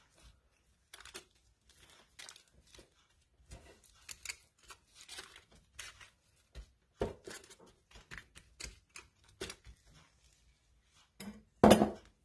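Disposable plastic-gloved hands rubbing sauce into raw meatloaf in a metal loaf pan: irregular crinkling and rustling of the gloves, with scattered light clicks. A louder knock near the end.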